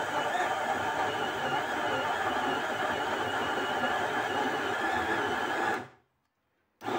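Sinbo countertop blender running steadily, liquidising sliced banana and egg into batter, with a high motor whine that wavers slightly in pitch. Near the end the sound fades to silence for under a second, then the blender is heard again.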